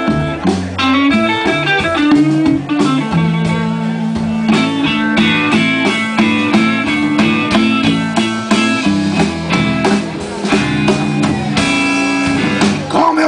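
Live blues band playing an instrumental passage: electric guitar playing lead lines over electric bass and drums.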